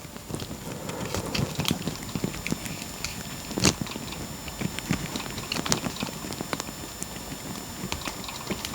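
Irregular small clicks and taps of a plastic car key fob shell and its rubber button pad being handled and pressed, with one sharper click about three and a half seconds in.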